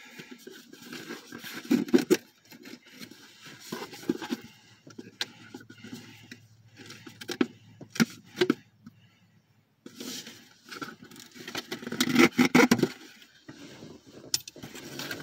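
Hands handling and opening a shipped package: irregular rustling, scraping and crackling of packaging, with scattered clicks, a brief pause about two-thirds of the way through and the loudest rustling near the end.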